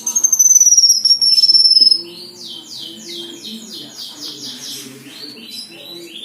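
Cucak kinoi songbird singing: a loud, high whistle that slides slowly down in pitch for about two seconds, then a quick run of short sweeping notes, about five a second, ending in softer scattered notes.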